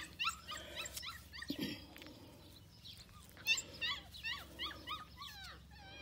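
F1b goldendoodle puppy whimpering in short, high-pitched yelping cries, a few a second, with a lull in the middle. A soft low thud comes about a second and a half in.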